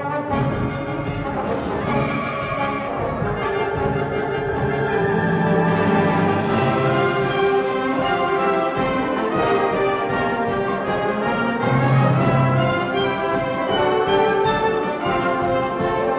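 Concert wind band playing, brass and woodwinds together in full, held chords.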